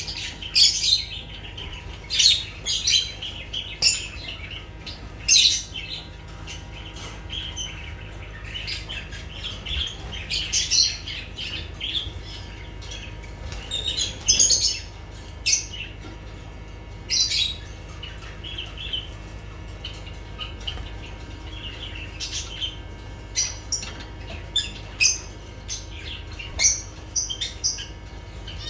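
Pet lovebirds chirping and squawking: many short, high-pitched calls in irregular bursts, over a steady low hum.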